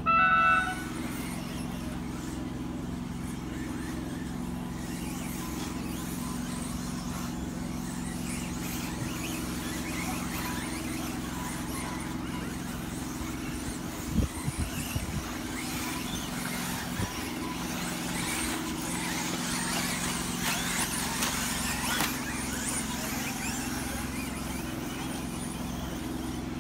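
A short electronic start tone, then small radio-controlled cars running around the track: a thin, steady hiss and whine of motors and tyres that builds in the second half, over a steady low hum. A few sharp knocks about halfway through, as cars hit something on the track.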